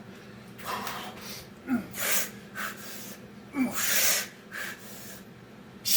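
A man breathing hard while doing Navy SEAL burpees: a few sharp, forceful exhales a second or two apart, two of them led by a short grunt. This is heavy breathing from exertion partway through a hard-fought set.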